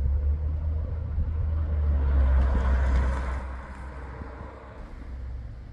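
Wind buffeting the phone's microphone: a steady low rumble with a gust of rushing wind that swells about two seconds in and eases off toward the end.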